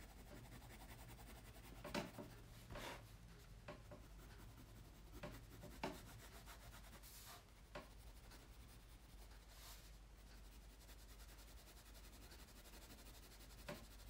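Faint pencil strokes on sketchbook paper: short, irregular scratches of graphite drawing, a few seconds apart, over a low steady hum.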